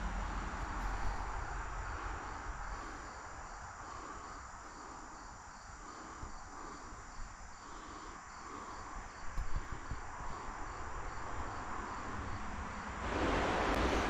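Crickets chirping steadily in evenly repeated pulses over a continuous high trill, with a low wind rumble on the microphone. Near the end a louder, steady rush of noise sets in.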